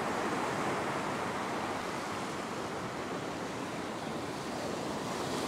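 Ocean wave surging over a flat rock shelf: a steady rush of surf and water washing across the rock, building again near the end.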